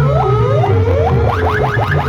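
Electronic siren-like sound effect played loud through a competition DJ sound system: quick swooping pitch sweeps over a heavy pulsing bass, the sweeps quickening to about five a second in the second half.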